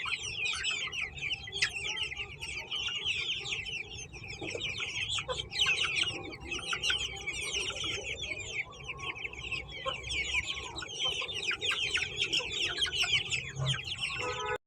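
A flock of desi chickens calling together: a dense, unbroken chatter of many short, overlapping high-pitched calls, with fainter lower clucks underneath.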